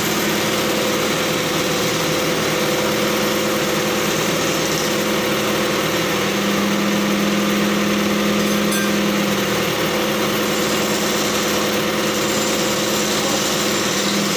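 Crane truck's engine running steadily at idle, driving the crane's hydraulics, with a constant hum. The hum's low tone grows louder for about four seconds in the middle, then settles back.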